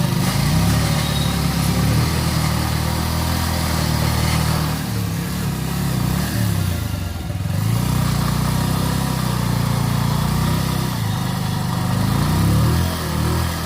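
Bajaj Pulsar 150 motorcycle engine running, its revs rising and falling repeatedly, with a brief drop about seven seconds in.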